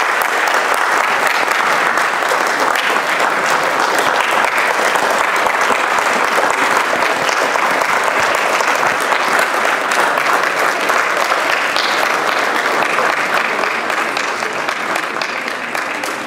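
A large audience applauding at length, a dense, steady clatter of many hands clapping that eases off slightly near the end.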